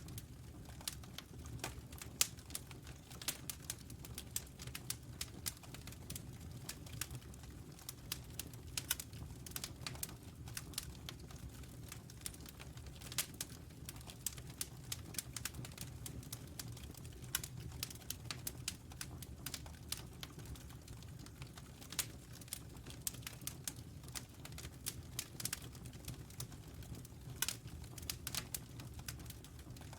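Wood fire crackling, with sharp irregular pops and snaps over a steady low rumble.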